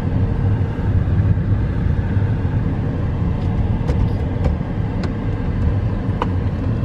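Car engine and road noise heard from inside the cabin while driving: a steady low rumble, with a few faint clicks in the middle.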